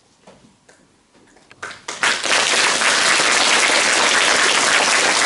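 Audience applauding. A few scattered claps come in about a second and a half in, then the full clapping sets in and stays steady.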